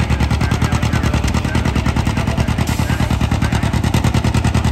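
John Deere two-cylinder tractor engine labouring under full load as it pulls a weight-transfer sled, its exhaust popping in a rapid, even beat.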